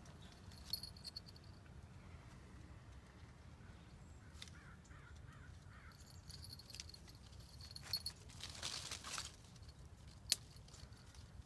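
Quiet rustling of leaves and branches as a tabby cat climbs through a shrub, with faint metallic jingles from its collar tag now and then and one sharp click near the end.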